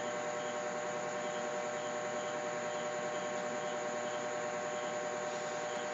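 Steady electrical hum over hiss: several fixed tones that hold unchanged throughout, with no other events.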